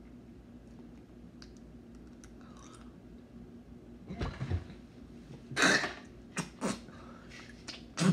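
A man chewing a Bean Boozled jelly bean, with faint wet mouth clicks. From about four seconds in come a few loud coughs and gags as he reacts to the flavour, which turns out to be booger.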